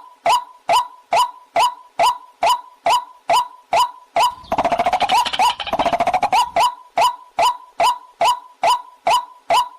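Waterhen calling: a loud, sharp note that drops in pitch, repeated about two and a half times a second. About four seconds in it breaks into some two seconds of fast rattling chatter, then the repeated notes resume.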